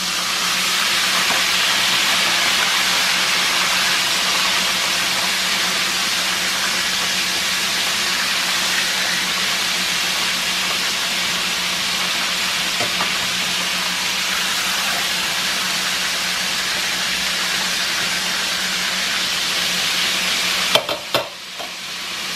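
Breaded chicken breasts deep-frying in hot oil in a stainless steel pot: a steady, dense sizzle of bubbling oil. A couple of sharp clicks come near the end.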